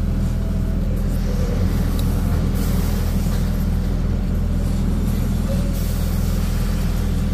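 Scania R 660's V8 diesel engine running steadily as the truck rolls slowly, a low drone. Two short hisses come through about two and a half and six seconds in.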